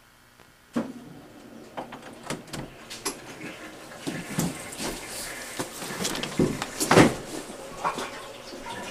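Bumping and rustling around a door: a sudden knock about a second in, then a run of irregular clicks, bumps and shuffling, with the loudest thud about seven seconds in.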